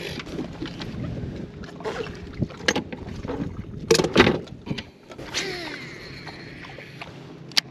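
Irregular knocks and clatter aboard a small fishing boat, loudest about four seconds in, with a sharp click near the end, over a low steady hum.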